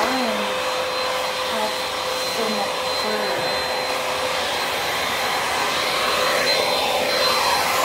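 Cordless handheld vacuum with a crevice nozzle running steadily across a hardwood floor: a rush of air under a steady high motor whine.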